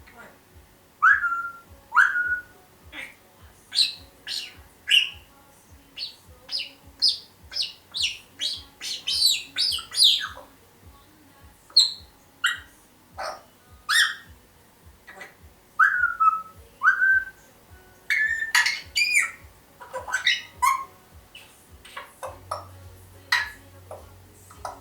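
African grey parrot giving a rapid string of short chirps, squawks and whistles, some of them short whistled notes that slide in pitch.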